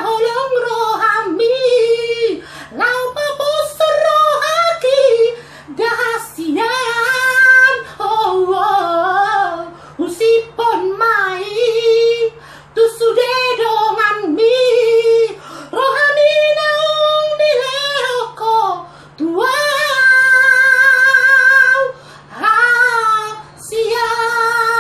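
A solo voice singing a Batak-language song unaccompanied, in phrases with sliding pitch, ending on long held notes with a wide vibrato.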